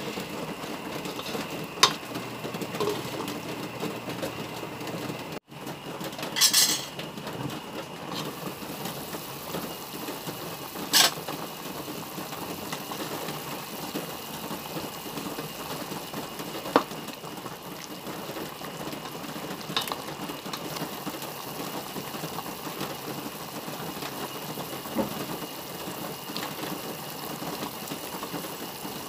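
A pot of pork adobo simmering on the stove with a steady bubbling rumble, broken by a few sharp clicks and knocks.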